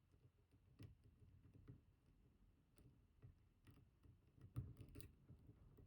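Faint, irregular clicks and ticks of a hook pick working the pin tumblers inside an IKON WSW high-security lock cylinder, about half a dozen spread apart, the clearest a little past the middle.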